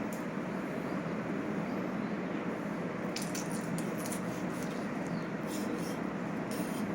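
Electric meat grinder running steadily, with wet squelching and crackling from about three seconds in as it grinds a lemon.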